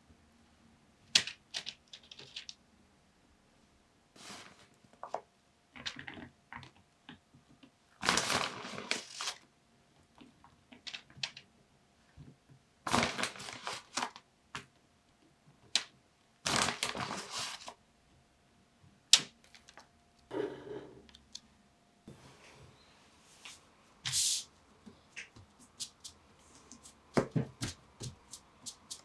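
Hands topping a pizza: a plastic bag of shredded cheese and parchment paper rustling and crinkling in short bursts, with scattered light clicks and taps.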